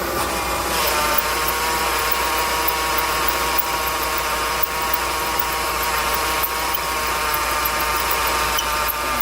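Failing power steering pump on a Volkswagen Golf GTI whining over the running engine as the steering is turned, a steady high-pitched tone with overtones that sets in about a second in and stops near the end. The failing pump drags on the drive belt.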